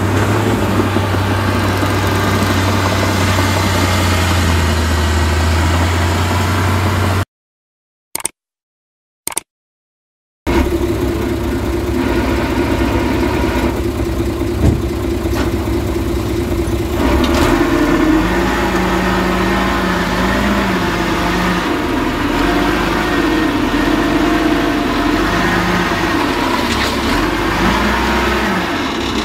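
Heavy diesel engines of earthmoving machinery, a bulldozer and dump trucks, running steadily, with the engine note rising and falling as they work in the second half. The sound cuts out completely for about three seconds about seven seconds in, broken only by two short blips.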